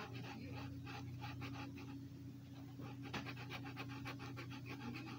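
Red Sharpie felt-tip marker scratching on paper in rapid short strokes, several a second, as an area is coloured in. A steady low hum runs underneath.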